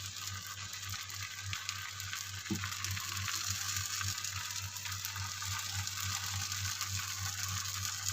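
Tosai (dosa) cooking on a hot buttered pan: a steady sizzling hiss full of small crackling ticks, over a steady low hum.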